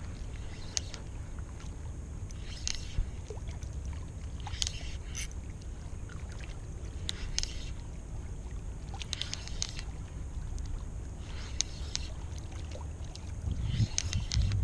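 Shoreline ambience: a steady low rumble with small, irregular splashy ticks of gentle water lapping on the rocks, a little busier near the end.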